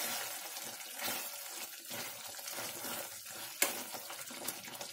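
Thick curry gravy sizzling in a kadhai on the gas as a steel spoon stirs it, with one sharp knock of the spoon against the pan about three and a half seconds in.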